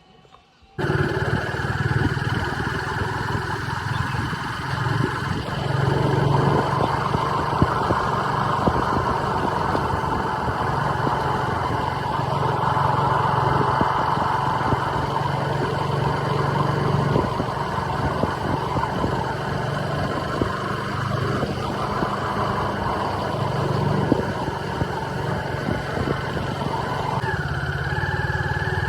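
A motor vehicle engine running steadily, cutting in suddenly about a second in; a higher steady tone joins near the end.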